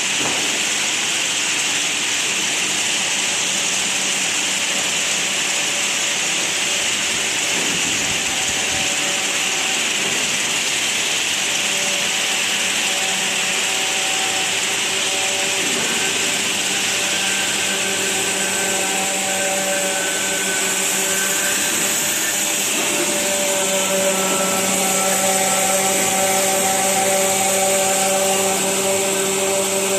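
Granule-making machine line running: a steady, loud machine noise with a strong hiss. Several steady motor hum tones join in from about halfway and grow slightly louder near the end.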